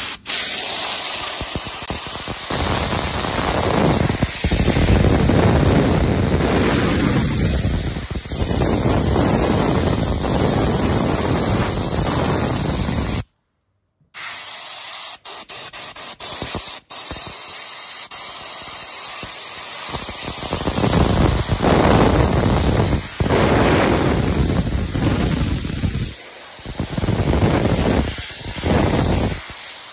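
Hose-fed cleaning spray gun blasting liquid onto a mud-caked car A/C blower fan: a loud, steady hiss of air and spray that rises and falls as the gun is worked. It breaks off completely for about a second near the middle.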